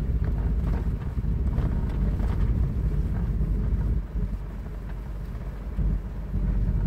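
Subaru Libero microvan driving along a snow-covered track: a steady low rumble from the engine and tyres on packed snow, with light crackling and wind buffeting the microphone. It eases off for about two seconds past the middle, then picks up again.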